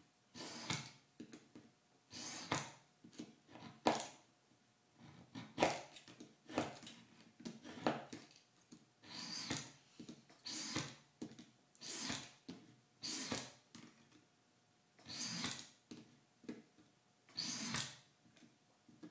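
Scoring knife drawn along a ruler across .025-inch aluminum sheet. About a dozen scraping strokes come roughly one a second, repeated to cut the line deep enough for the sheet to be snapped along it.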